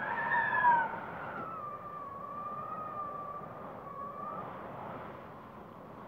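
Wind howling with a whistling tone over a steady rush. The pitch peaks and is loudest within the first second, then drops and wavers lower as the gust eases off.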